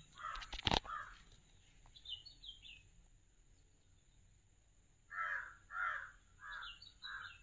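A crow cawing: a couple of calls near the start, then a run of five evenly spaced caws in the second half. A smaller bird chirps briefly about two seconds in, and there is one sharp click near the start.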